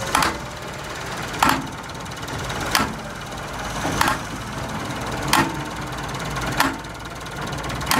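Metal being struck with a heavy hammer at a steady pace: seven ringing blows, about one every 1.3 seconds, over a steady low machine hum.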